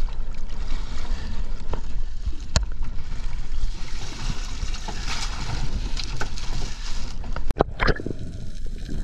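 Seawater sloshing and a plastic bag rustling as a bagged fish is dunked over a boat's side and pushed into an ice box, with a sharp knock about two and a half seconds in. About seven and a half seconds in it breaks off into muffled underwater sound.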